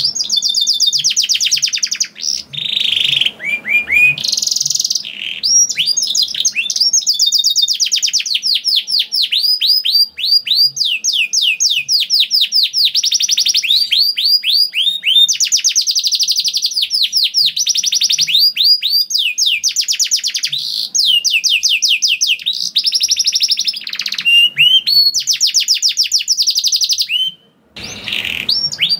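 Domestic canary singing a long, loud song made of rapid rolling trills: runs of fast-repeated, high, downward-sweeping notes, one run after another with hardly a break, pausing briefly near the end.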